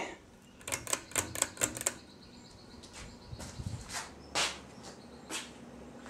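Hunter Silent Breeze ceiling fan running on high with a steady motor hum, a sign of the noise issues the owner puts down to a capacitor that may need replacing. About a second in comes a quick run of light clicks, the pull chain rattling against the switch housing, and a few single clicks follow.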